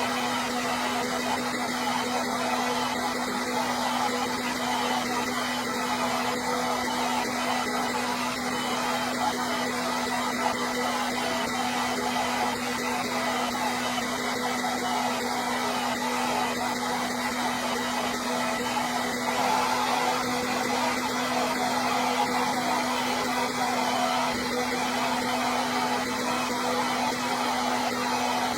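Hair dryer running steadily: an even rush of blown air with a constant motor hum underneath.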